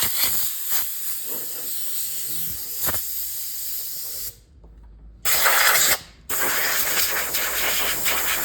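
Aerosol can of garage door lubricant spraying in hissing bursts: a long spray that stops about four seconds in, a short spray after a pause of about a second, then another spray after a brief gap.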